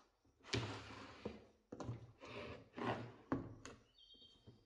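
Old wooden speaker cabinet being handled and turned over on a wooden surface: a series of short wooden knocks and thuds, about eight in all.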